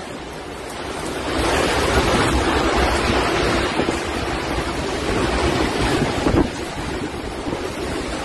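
Strong storm wind gusting, buffeting the microphone with a rough, uneven low rumble.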